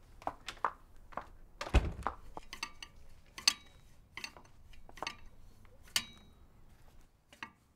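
Metal clanks and clinks of a tire iron being worked on a truck wheel's lug nuts during a tyre change: a series of irregular sharp knocks, some ringing briefly, with a heavier thunk about two seconds in.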